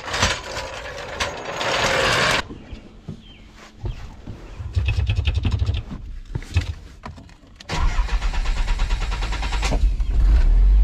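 A Nissan KA24DE 2.4-litre four-cylinder, swapped into a 300ZX, is started on its newly fabricated dual-exit exhaust. The starter cranks for about a second midway, then the engine catches after about eight seconds and settles into a steady idle. A couple of seconds of noise come first.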